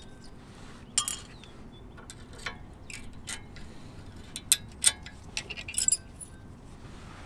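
Steel brake-pad spring clips being pried off a front brake caliper bracket with a screwdriver, giving a string of irregular sharp metallic clicks and clinks.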